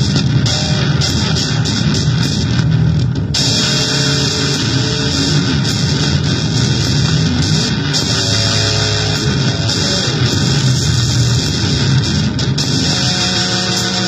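Harsh, heavily distorted noise from an effects pedal under test: a dense buzzing wash that turns brighter and hissier about three seconds in. A few short held tones break through around the middle and again near the end.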